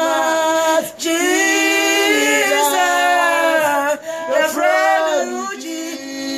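Two women singing a gospel song unaccompanied, holding long notes that slide between pitches, with short breaths about a second in and again about four seconds in.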